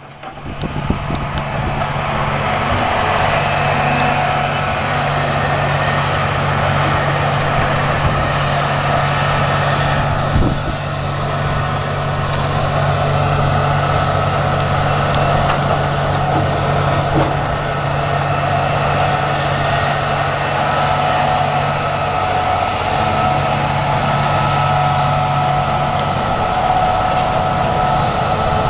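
Heavy diesel engine of logging equipment running steadily under load, with a single knock about ten seconds in.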